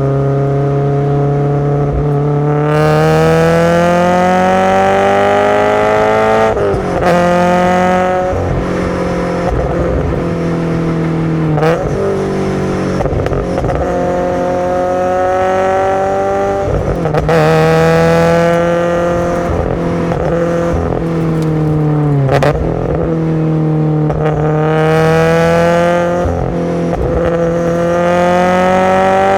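Subaru BRZ's FA20 flat-four with SARD individual throttle bodies, pulled hard through the gears. Its pitch climbs again and again, with a short drop at each of several gear changes. About three quarters of the way through it lifts off sharply, then pulls up again.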